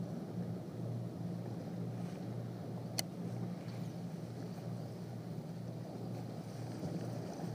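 Low steady drone of a boat engine over wind and water noise, with one sharp click about three seconds in.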